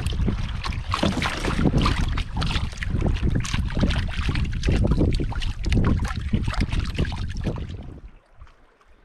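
Wind buffeting the microphone, with water splashing and sloshing around a paddled canoe; it falls away suddenly about eight seconds in.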